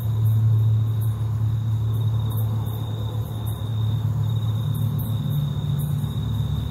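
Steady low mechanical hum with a thin, high, steady whine over it.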